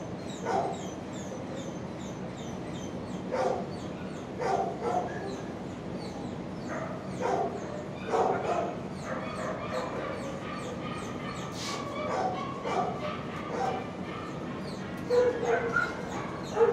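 Dogs barking and yipping on and off in a shelter kennel block. Short barks come every second or few, louder ones near the end, over a steady low hum.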